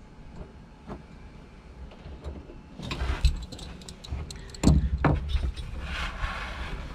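Hands working among the rubber hoses and plastic parts of a jet ski's engine bay: scattered clicks at first, then from about three seconds in a busier run of knocks, clicks and rustling, with one louder thump midway, over a low rumble.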